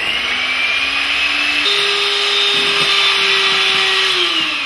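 Electric hand mixer running, its beaters whipping egg whites in a glass bowl. The motor whine steps up to a higher pitch about a second and a half in, then begins to wind down near the end.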